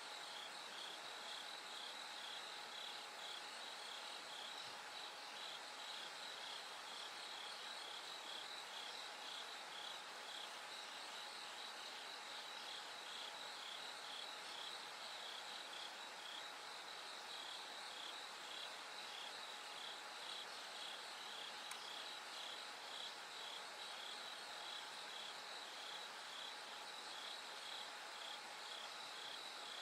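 Bell crickets (suzumushi) chirping in a regular, evenly spaced train of short high pulses, over a steady high trill and a faint hiss of night insects.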